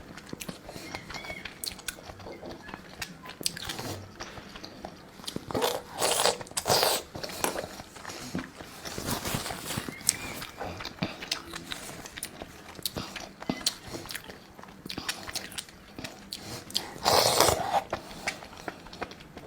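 Close-up eating sounds: a person biting and chewing skewered food from red chili oil, with moist clicks and smacks throughout. Louder bites or slurps come about six seconds in and again near the end.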